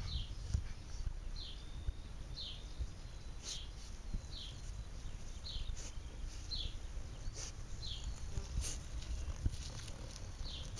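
French bulldog snuffling and sniffing with its nose pushed down into the grass and soil, in short uneven snorting breaths.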